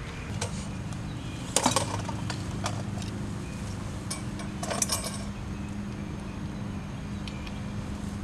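Small clinks and rustles of belongings being handled as a bag is gone through, loudest about one and a half seconds in and again near five seconds, over a steady low hum.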